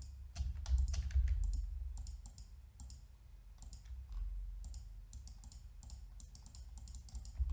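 Computer mouse buttons clicking and keyboard keys tapping in irregular runs of sharp clicks, over a low hum.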